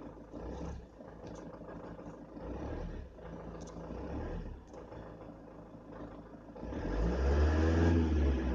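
Van engine idling with a low steady hum, then revved up about seven seconds in, louder, its pitch rising and falling. The revs are raised for an alternator charging test under load.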